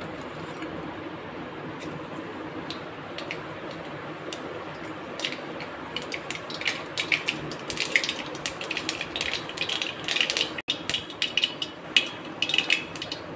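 Mustard seeds in hot ghee in an iron kadai: a steady low sizzle at first, then sharp pops that come more and more often from about five seconds in as the seeds begin to crackle and splutter.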